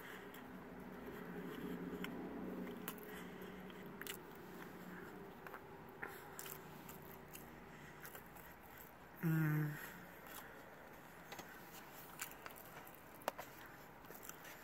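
Close-up chewing and mouth sounds of a person eating chili cheese fries, with scattered small clicks. About nine seconds in there is a short hummed vocal sound.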